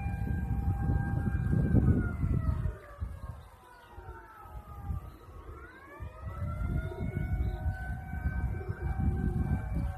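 A siren wailing: its pitch holds, falls a few seconds in, then rises again and holds steady, over a low rumble.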